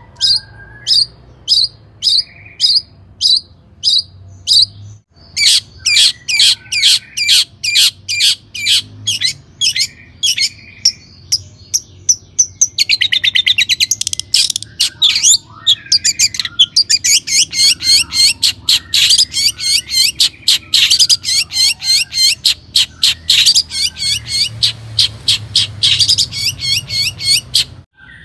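Long-tailed shrike (cendet) singing: sharp, high repeated notes, about two a second at first, then faster from about five seconds in. In the second half it breaks into a rapid trill and dense runs of notes.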